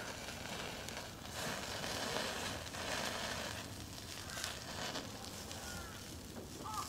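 Duck meat sizzling and crackling in its own rendered fat on a hot grill or pan.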